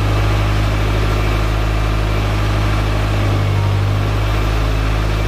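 Steady low mechanical drone of a machine running, holding an even pitch with a slight shift in tone about three seconds in.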